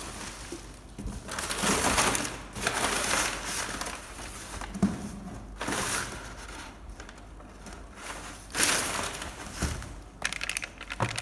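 Crinkly plastic packaging being handled, rustling in several irregular bursts with a few light clicks in between.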